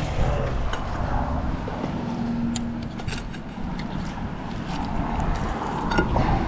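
Steady low rumble of road traffic passing nearby, with a few light clicks scattered through.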